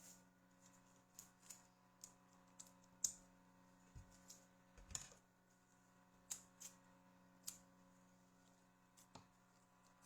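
Faint, irregular light clicks and ticks of small plastic parts being handled, as in hand work on a video cassette during repair, over a steady low electrical hum.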